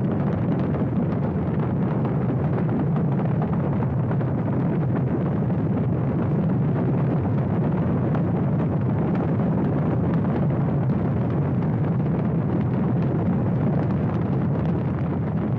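Saturn V rocket at liftoff, its five F-1 first-stage engines firing: a loud, steady, deep rumbling noise that does not let up.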